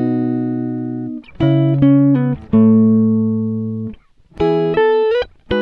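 Music: a plucked guitar sound playing a slow run of chords, about one a second, each ringing out and fading, with a few notes sliding up in pitch.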